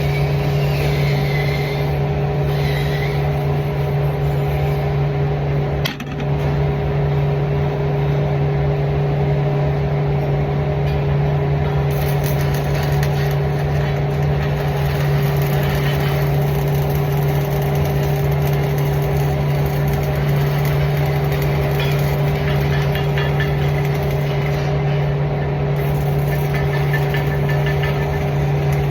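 A steady machine drone with a constant low hum, dipping briefly about six seconds in.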